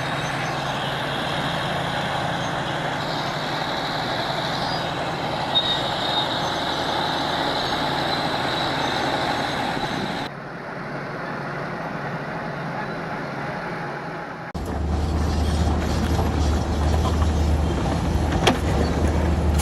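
Heavy earthmoving machinery running, with the sound changing abruptly twice as one clip cuts to another. The last stretch carries a strong, low engine hum.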